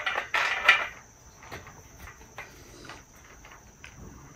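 Quiet handling of a steel bed-frame corner with freshly hand-tightened bolts: a short rustle in the first second, then a few faint light metal clicks. A faint steady high-pitched tone sits under it all.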